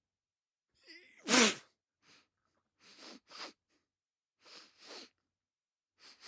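A person sneezing once, loudly, about a second and a half in, with a quick voiced intake of breath just before the sneeze. Several softer short breaths follow in quick pairs.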